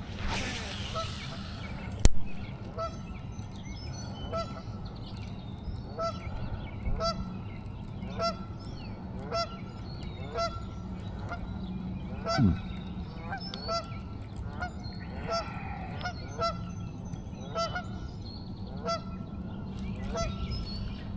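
Geese honking over and over, about one short call a second, over a steady low hum, with a single sharp knock about two seconds in.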